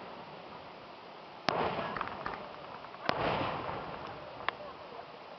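Aerial fireworks bursting: two sharp bangs about a second and a half apart, each trailing off, then a smaller crack near the end.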